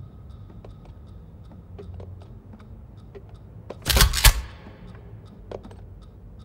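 Faint, irregular small clicks over a low steady hum, then a sudden loud double bang about four seconds in, two sharp hits close together with a short ringing tail.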